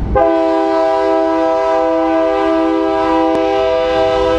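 EMD GP11 diesel locomotive blowing one long, steady multi-note air horn chord that starts almost at once, with the low rumble of the locomotive beneath it.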